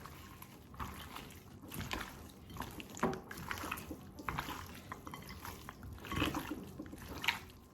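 Hands mixing raw goat meat in a wet marinade of green seasoning, soy sauce and ketchup, making irregular wet squelches and slaps.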